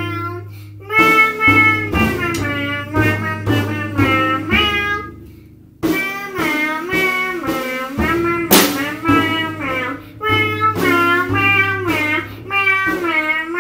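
Music: a sliding, pitched melody line over a steady low note, with a few sharp hits, the loudest about eight and a half seconds in.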